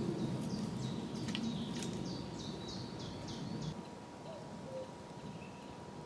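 A small songbird singing a quick run of about eight short, repeated high notes, over a low background rumble that eases off about four seconds in.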